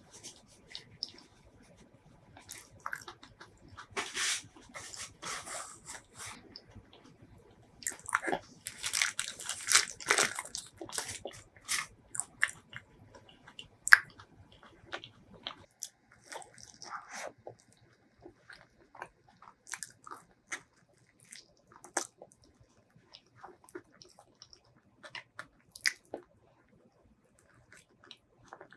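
Close-miked eating of soft Thai mini durian flesh: wet chewing, mouth and lip sounds, and the fruit being handled. There are denser bursts of crackling about four seconds and eight to eleven seconds in, and one sharp click partway through.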